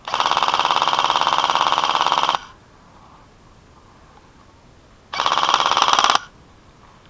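Airsoft rifle firing two full-auto bursts at close range: a rapid, even rattle of about two seconds, then a shorter burst of about a second near the end.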